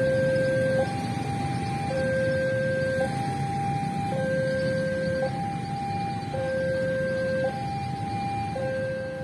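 Railway level-crossing warning alarm sounding, a steady alternation of a low and a higher tone, each held just under a second, over a steady low rumble. It is the signal that a train is approaching the crossing.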